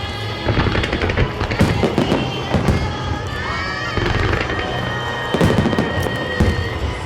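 Aerial fireworks bursting in quick, irregular succession with crackling, over music played along with the display.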